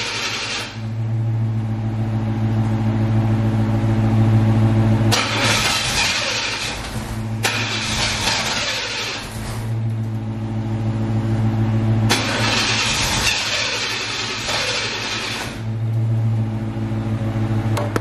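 C4 Corvette's 5.7-litre V8 being cranked over by the starter without firing. There are three spells of a few seconds each that start and stop abruptly: one ending just after the start, and two beginning about five and twelve seconds in. A steady engine hum runs under them. The owner puts the no-start down to air escaping through a torn intake hose.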